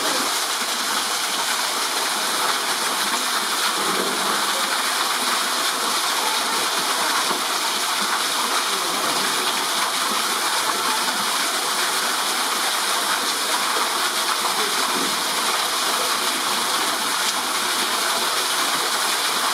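Waterfall pouring steadily down a rock face, an even rushing splash.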